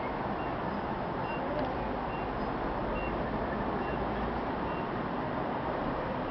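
Steady road traffic noise, with a faint, short high beep recurring about once a second.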